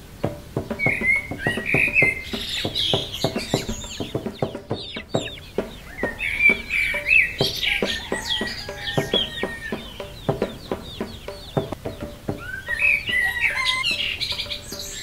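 Chickens clucking and small birds chirping in bursts, over quiet background music, with many short clicks throughout.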